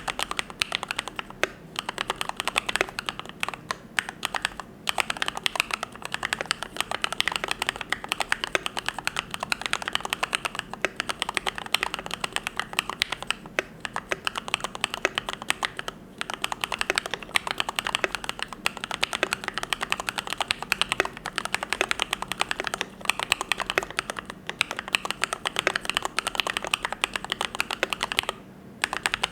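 Fast, continuous typing on a YMD75 V3 custom mechanical keyboard with lubed Gateron Yellow linear switches: a dense run of keystroke clacks, broken by a few short pauses.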